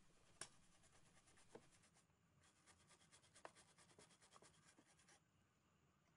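Faint, rapid scratching strokes of a tool scrubbing and scraping corrosion off the traces of an ECU circuit board, in two spells with a short pause about two seconds in and a few sharper ticks.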